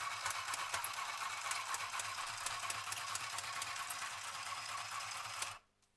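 Mini electric sewing machine running steadily through a seam in paper, a fast mechanical whirr with fine rapid ticking, then stopping abruptly near the end.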